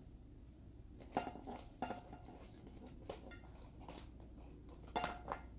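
Handling noise from a cardboard sandwich box and its paper wrapper: a few soft, scattered taps and rustles spread over several seconds as the box is handled.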